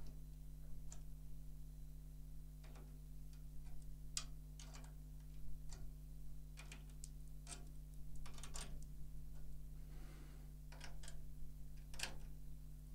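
Faint, irregular clicks and ticks as a drum key turns the tension rods of a 14-inch snare drum a quarter turn each, tightening a new Remo Ambassador coated batter head. A steady low electrical hum runs underneath.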